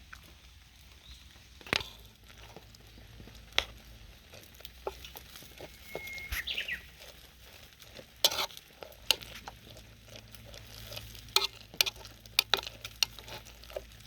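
Wood campfire crackling, with irregular sharp pops and snaps over a low steady hiss.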